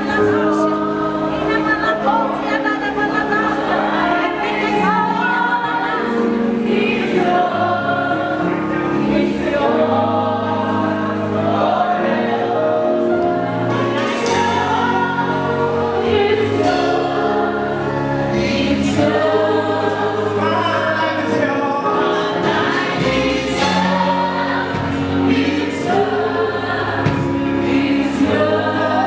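Choir singing a gospel worship song over a steady instrumental accompaniment.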